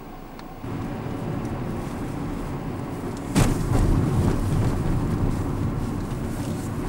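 Car engine and road noise heard from inside the cabin as the car drives, a steady low rumble. It gets louder about half a second in, and again after a sharp click a little past halfway.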